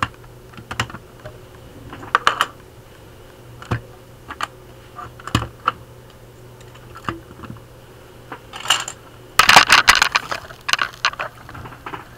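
Plastic Lego bricks and parts clicking and knocking as the top is taken off a Lego shredder: scattered single clicks, then a dense clattering run about nine to eleven seconds in.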